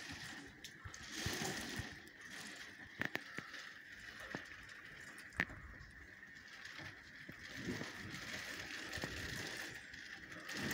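Faint storm wind swelling and easing, with scattered light clicks and taps and a faint steady high-pitched whine.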